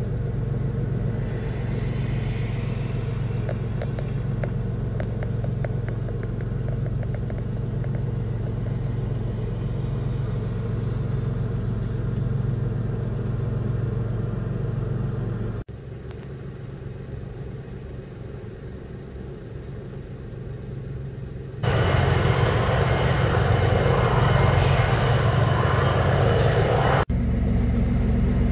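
Steady low engine drone with a constant hum. About halfway through it drops quieter after a cut, and later a louder rushing noise with a high whine sets in for several seconds before another cut back to the low hum.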